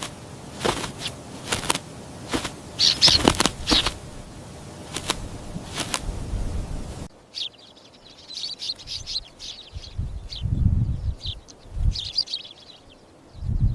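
Small birds chirping and fluttering their wings: sharp clicks and flaps through the first half. After an abrupt change about seven seconds in come bursts of high twittering with a few low rumbles.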